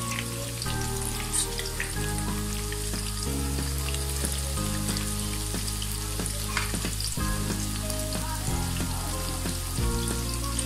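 Cabbage and potato pakoras deep-frying in hot oil at medium heat: steady sizzling and bubbling with scattered crackles. Low held notes of background music sit underneath, changing every second or two.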